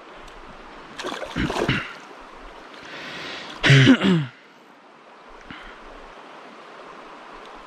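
Shallow river water running steadily over cobbles, with sloshing as hands work a brown trout held in the water. A man's voice breaks in briefly about a second in and again, loudest, near four seconds.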